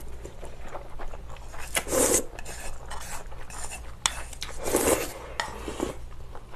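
Close-up eating sounds of mul-naengmyeon: noodles slurped in, then cold broth sipped from a small bowl, with two louder slurps about two and five seconds in. Light clicks of chopsticks and dishes run between them.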